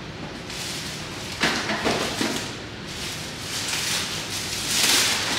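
Plastic bags rustling and crinkling in irregular bursts as food is pulled out of a freezer and bagged for the trash, loudest about five seconds in.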